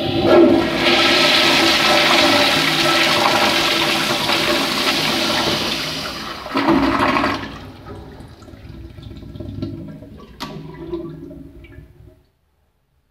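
Vintage 1970s Kohler floor-mount toilet flushing through a chrome flushometer valve. Water rushes and swirls down the bowl for about six and a half seconds, surges briefly, then tapers off with a sharp click about ten seconds in.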